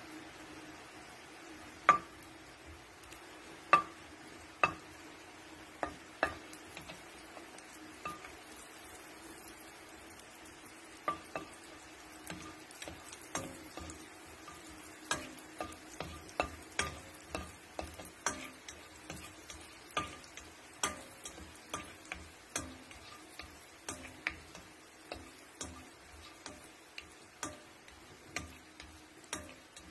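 Butter melting and being stirred in a hot pan, giving sharp clicks and pops. A few come spaced out at first, then they come faster, about one or two a second, over a steady low hum.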